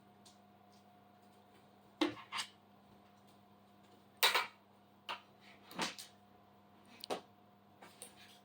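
Light clicks and knocks of hands handling a stepper motor cable and its plastic connector while wiring a CNC machine's stepper motor, about six separate taps spread out, over a faint steady hum.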